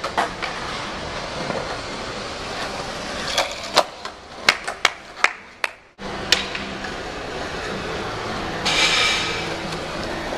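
Skateboard wheels rolling on a smooth stone floor, with a quick run of six or so sharp clacks of boards striking the floor midway. Later the rolling runs steady, with a brief louder hiss near the end.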